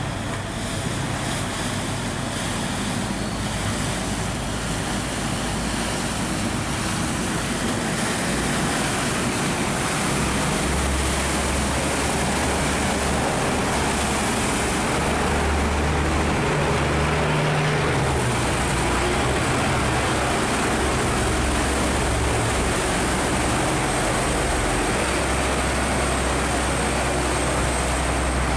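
Boat and barge engines running as the vessels pass close by, a low hum that changes as each one goes by, over the steady rush of fast-flowing water through the sluice gate.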